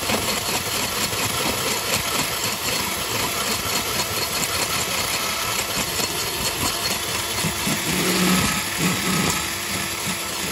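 Hand-held power tool running steadily with a carbide burr grinding at the inside of a new brake rotor's hub, scraping off paint residue so that no flakes can get into the wheel bearing.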